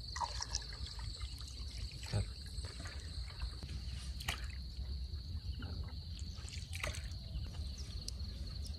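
Water trickling, with several short splashes or knocks, over a steady high chirring of insects.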